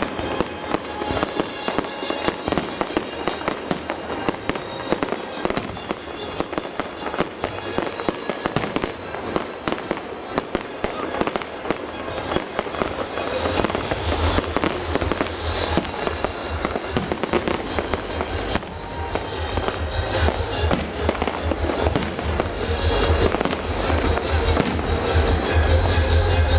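Fireworks salute: a fast, dense string of bangs and crackles from shells bursting overhead. A deep low rumble joins about halfway, and the whole gets louder toward the end.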